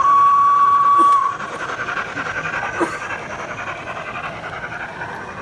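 A sound-fitted model locomotive gives one steady, high-pitched horn blast about a second long that cuts off, the second of two in quick succession. A quieter steady background follows, with a couple of faint clicks.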